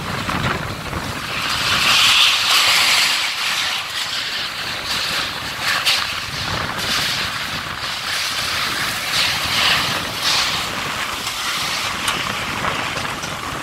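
Heavy rain pouring steadily, swelling louder in gusts of wind, strongest about two seconds in and again near ten seconds, with a few sharp drop taps.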